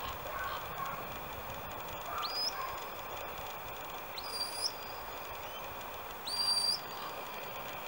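Shepherd's whistle blown three times as commands to a working sheepdog. Each blast is a quick rising note held level for about half a second, about two seconds apart, and the last is the loudest.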